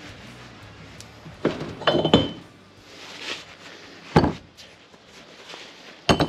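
Sharp metallic clinks and knocks as a steel hydraulic swivel-joint spool is handled and set down on a workbench, with a short metallic ring about two seconds in and a rattle of clinks near the end.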